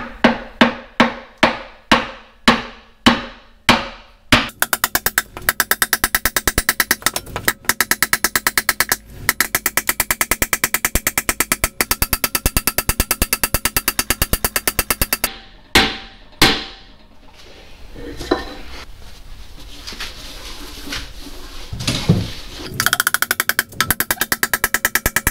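Hammer tapping a new cylinder sleeve down into its bore in a 1942 Farmall M engine block. It starts with single strikes about two a second, then goes to fast, light, even tapping, about ten taps a second. Near the middle there are two harder blows and a short quieter spell, then the fast tapping resumes.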